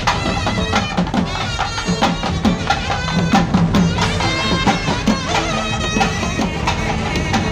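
Background music with percussion and drums.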